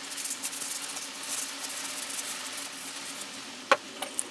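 Cloth rubbing as a steel hand-drill part is wiped down, then a sharp clack near the end as a metal part is set down on the workbench, followed by two lighter taps.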